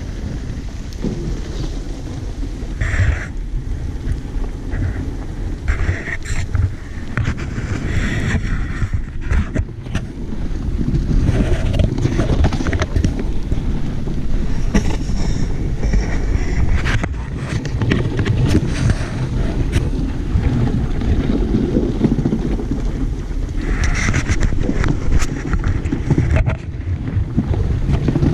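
Dogsled gliding over packed snow behind a running dog team: a steady rumbling hiss of the runners on the snow, with wind buffeting the camera microphone and a few brief louder scrapes.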